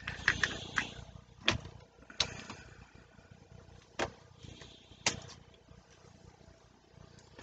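Small plastic gel polish pots and their lids being handled and set down, giving a handful of sharp clicks and light knocks at irregular moments, with brief rustling near the start.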